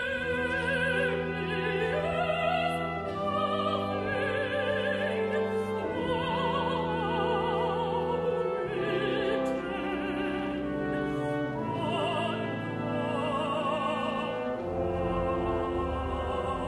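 Operatic singing with wide vibrato over an orchestra holding long, low sustained chords that shift every few seconds.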